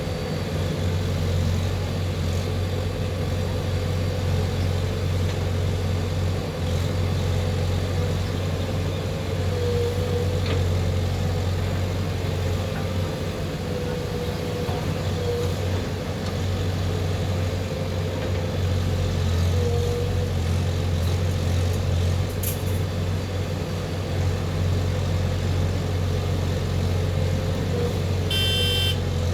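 A JCB 3DX backhoe loader's diesel engine running steadily under work, with a thin whine that dips briefly every few seconds. A short high-pitched sound comes near the end.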